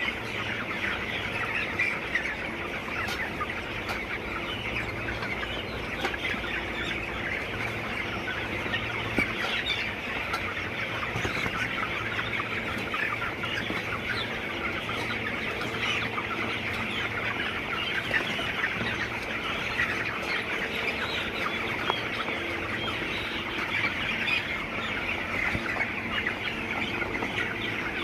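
A large flock of chickens in a poultry house clucking and peeping, a steady dense din of many overlapping calls, with a faint steady low hum underneath.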